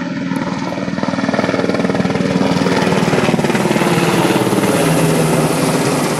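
Sikorsky S-70i Black Hawk helicopter flying low overhead: the rapid chop of its main rotor blades over the whine of its twin turbine engines. It grows louder over the first two seconds as it comes overhead, then holds loud and steady.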